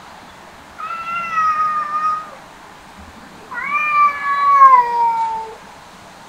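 An orange-and-white cat meowing twice at another cat in long, drawn-out calls, the second louder and falling in pitch as it ends.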